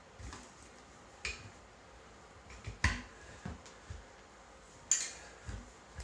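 Irregular sharp knocks and clicks from a steel tire iron and plastic rim savers against a steel ATV rim as the tire's bead is levered over the rim edge. There are about eight of them, the loudest about three seconds in.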